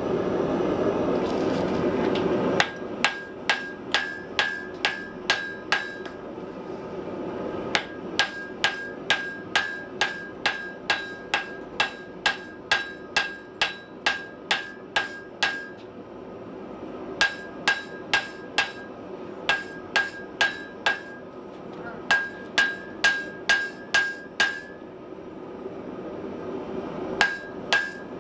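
Hammer blows on hot iron over an anvil, forge-welding the folded body segments of an anvil at welding heat: runs of sharp strikes at about two a second, each with a short metallic ring, broken by brief pauses. A steady rush of the gas forge fills the first couple of seconds before the hammering starts.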